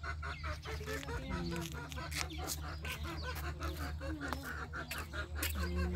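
Flock of chickens clucking, a dense run of short calls with a few longer pitched calls, over a steady low hum.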